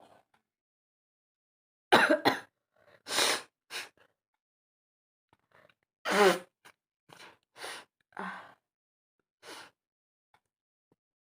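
A woman sneezing, with a sharp loud burst about two seconds in and another about six seconds in. Shorter breathy huffs and sniffs come after each, dying away before the end.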